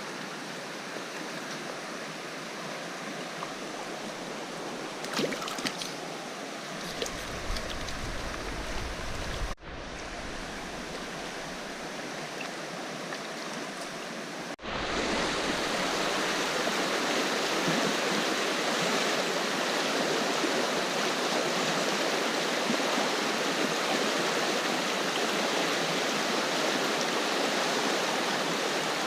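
River water rushing over a riffle, a steady noise that becomes clearly louder after a cut about a third of the way through. A few light knocks sound about five to eight seconds in.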